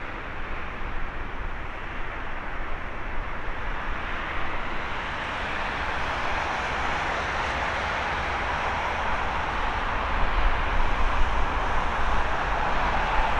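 Airbus A330-300's Rolls-Royce Trent 700 jet engines on final approach: a steady jet rumble that grows gradually louder as the airliner nears, with a deeper low rumble building over the last few seconds.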